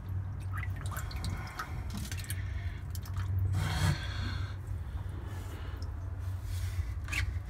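Water sloshing and dripping in a tub of live two-banded sea bream as a hand moves the fish about, in irregular splashes over a steady low hum.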